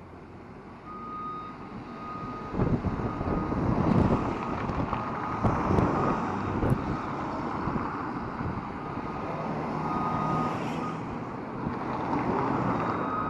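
Wind buffeting the microphone while riding an e-bike, a rumbling rush that swells about two and a half seconds in. A faint high steady tone comes and goes through it.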